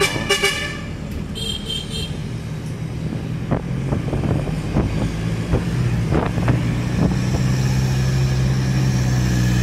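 Safari jeep's engine running steadily as it drives along, its note growing stronger in the last couple of seconds. A brief high-pitched sound at the very start and a few short knocks in the middle.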